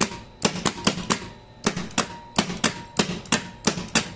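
Magnetic contactors on a crane control panel clicking in and out again and again, in rough pairs, as the hoist-up pushbutton is pressed and released.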